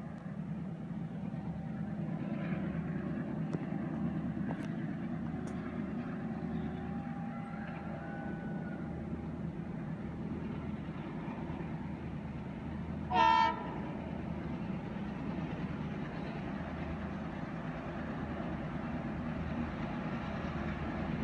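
Locomotive horn of an approaching express train: one short blast about thirteen seconds in, over a steady low rumble.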